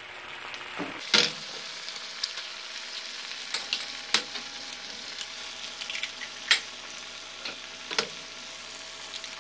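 A tomato and white-cheese mixture sizzling and bubbling steadily in a frying pan, with several sharp knocks as eggs are cracked and dropped into the pan.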